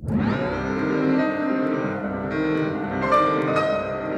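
Recorded piano music, starting suddenly with a full chord and going on with sustained, changing notes.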